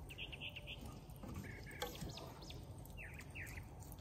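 Wild birds chirping in several short bursts over a faint outdoor background hum, with a couple of soft taps and scrapes from a wooden spatula spreading spinach in a cast-iron skillet.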